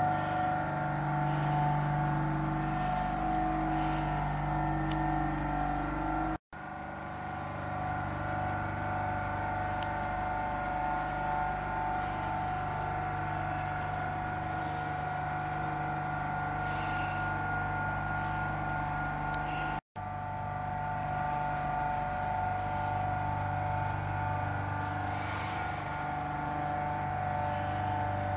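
Steady hum of industrial machinery, several even tones held with no rhythm, with a few faint clicks. The sound drops out for an instant twice.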